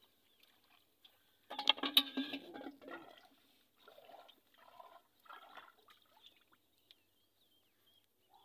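Water splashing and trickling close by, loudest in a burst of about a second near the start, followed by a few softer splashes.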